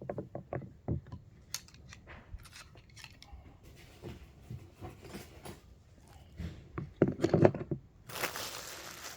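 Metal hand tools such as pliers and screwdrivers being handled, giving a string of light clicks and clinks. There is a louder bout of knocks about seven seconds in, then a steady rushing noise from about eight seconds.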